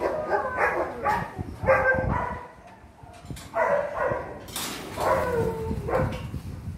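Dogs in kennel runs barking and whining: a string of short, pitched yelps and whines, with a lull about halfway through.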